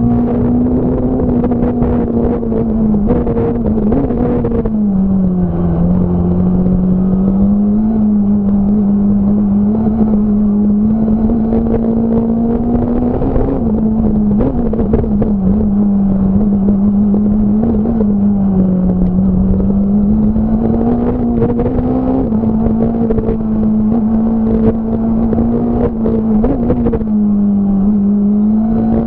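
Fiat Punto S1600 rally car's 1.6-litre four-cylinder engine held at high revs at racing pace, heard from on board, its pitch dipping and climbing again several times as the driver lifts, shifts and gets back on the throttle. Short clicks and knocks from the car run through it.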